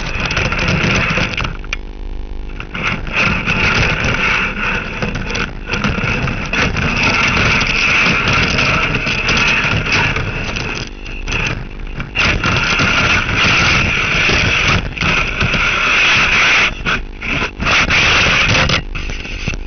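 Loud, steady machine noise with a rushing hiss and a low rumble, cutting out briefly several times.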